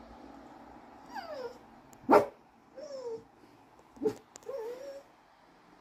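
English Cocker Spaniel whining in short falling calls, broken by two sharp barks about two and about four seconds in. The first bark is the loudest sound.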